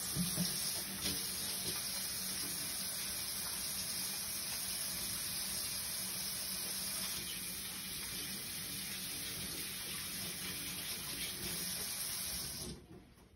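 Kitchen faucet running steadily into a stainless steel sink as hands are washed under the stream; the water shuts off abruptly near the end.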